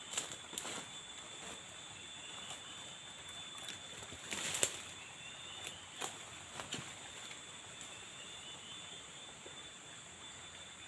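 Quiet forest ambience: a steady high-pitched drone, typical of insects, under scattered sharp clicks and rustles. The loudest cluster of clicks comes about four and a half seconds in.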